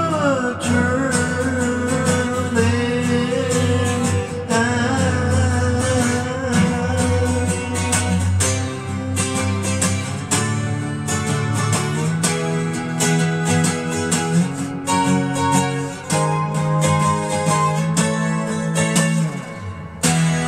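Twelve-string acoustic guitar strummed and picked, with a man's voice singing and holding a last note over it in the first two seconds. The playing goes on without singing and ends on a strong strum near the end.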